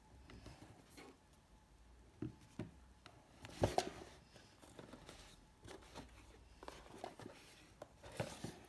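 Cardboard speaker box and its insert being handled: scattered light taps, scrapes and knocks, the loudest a knock about three and a half seconds in.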